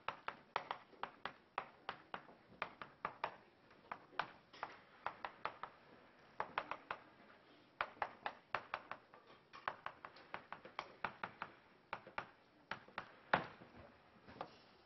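Chalk writing on a chalkboard: faint, quick taps and clicks, several a second, in short runs with brief pauses between strokes.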